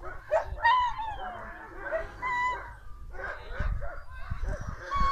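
Dogs whining and yipping: a string of short high-pitched calls that rise and fall in pitch, repeated several times.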